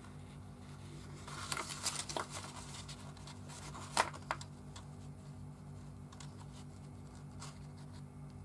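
Self-adhesive photo paper being pressed and smoothed by hand onto construction board: paper rustling and crinkling, loudest between about one and a half and two and a half seconds in, with a sharp tap about four seconds in and a few fainter ticks after.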